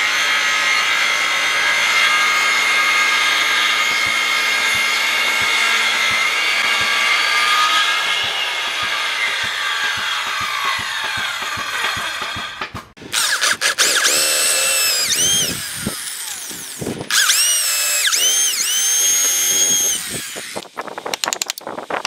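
Corded circular saw cutting kerfs into the end of a log. It runs at speed with a steady whine, then the pitch sags and winds down. After a brief gap the saw runs again in two spells, its pitch dipping again and again as the blade bites into the wood. It stops shortly before the end, followed by a few light clicks.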